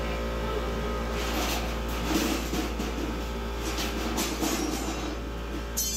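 Steady mechanical hum of a glassblowing studio's furnace equipment, with irregular clattering and a few knocks over it and a sharp knock near the end.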